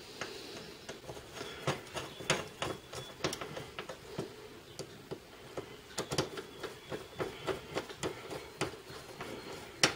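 Screwdriver turning small screws into a motorcycle fuel petcock's body: faint, irregular clicks and ticks of metal on metal.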